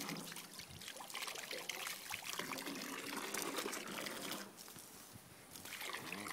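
Water spraying from a garden hose, a steady hiss that eases off for about a second some four and a half seconds in.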